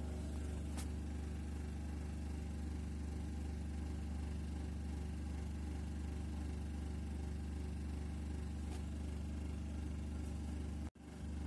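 A steady low hum, like a small motor or appliance running, with a couple of faint clicks; it drops out abruptly for a moment near the end.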